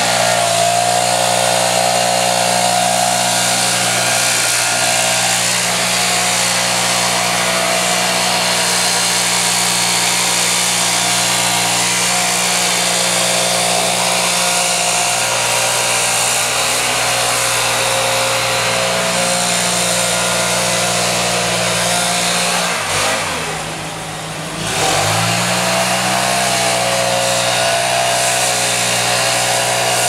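Gas-powered backpack leaf blower running steadily at high throttle, blowing snow off a pickup truck. About three quarters of the way through, the throttle eases off for a moment, the pitch dropping, then rises back to full speed.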